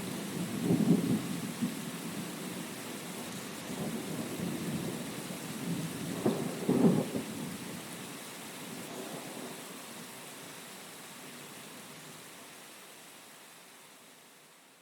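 Heavy rain hissing steadily in a thunderstorm, with rumbles of thunder about a second in and again around six to seven seconds in. The storm then fades out gradually toward the end.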